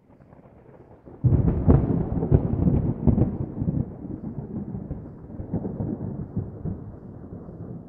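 Thunder: a sudden loud clap with crackling about a second in, then a rolling rumble that slowly fades.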